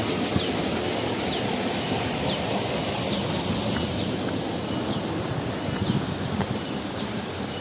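Cicadas droning in a steady high buzz, with short falling chirps repeating about once a second, over a steady broad rushing noise.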